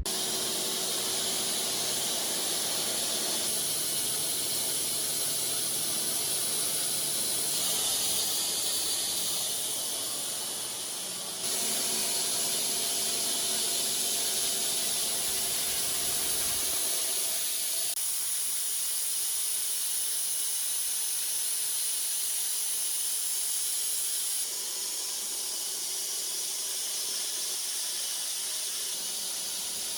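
Custom 72-inch wide bandsaw sawmill cutting through a walnut log: a steady, loud hiss from the blade in the wood. The sound changes abruptly several times, as between separate stretches of cutting.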